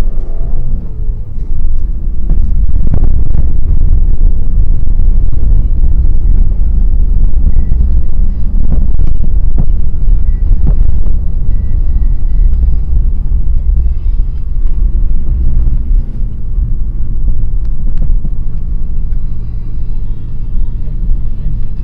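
Fiat Panda 4x4 heard from inside the cabin while driving with four-wheel drive engaged: a loud, steady low rumble of engine, drivetrain and tyres on a snowy, rough lane, with scattered knocks and rattles as the car goes over bumps.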